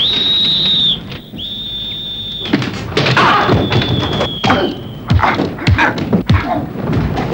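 A shrill hand whistle blown in three blasts, two short ones and then a longer, fainter one that sags slightly in pitch, as the signal to withdraw. From a few seconds in come repeated heavy thuds and knocks.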